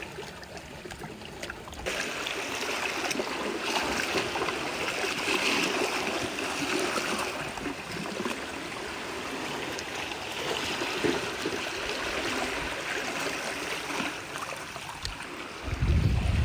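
Seawater trickling and gurgling over rocks in a steady wash. Near the end, wind buffets the microphone with a loud low rumble.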